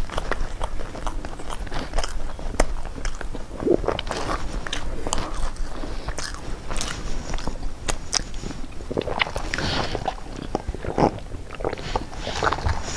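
Flaky pastry crackling and crunching as it is handled, torn apart and eaten, with many sharp, crisp crackles.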